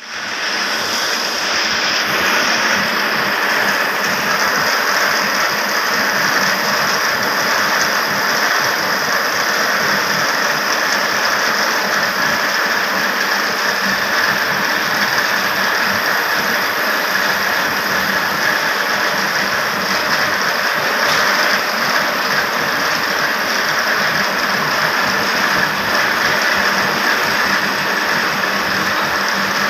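Powerloom mill machinery running continuously, a loud, steady, dense mechanical din.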